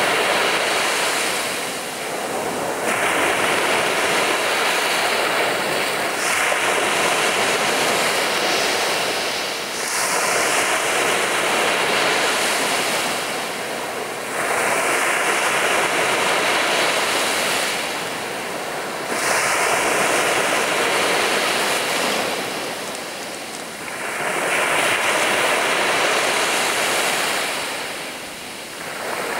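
Black Sea surf breaking on a beach, wave after wave, each one swelling into a rush of water and then easing, about every four seconds.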